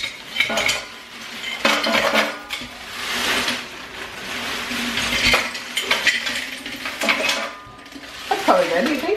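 Ice cubes poured from a plastic bag into a glass jar, rattling and clinking in uneven bursts, with the plastic bag crinkling.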